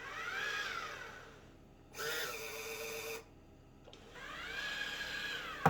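Robot mop's motors whining, rising and falling twice, with a short hiss in between, about two seconds in. A sharp click at the very end.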